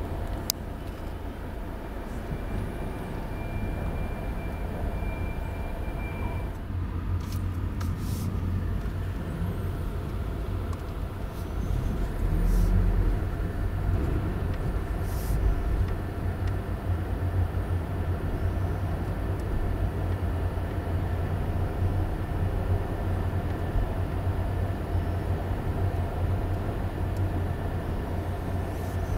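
Low engine and tyre rumble heard inside a car's cabin as it drives slowly up the ramp and onto a ferry's car deck, with a few sharp knocks about seven to eight seconds in and again a little later. The rumble grows louder about twelve seconds in.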